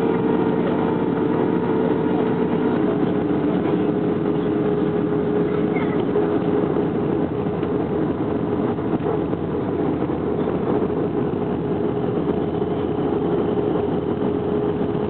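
Airbus A321 engines and airflow making a steady drone, with a constant hum underneath, during the landing approach.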